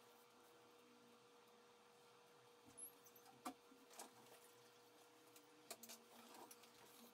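Near silence: room tone with a faint steady hum and a few faint small clicks and taps in the middle.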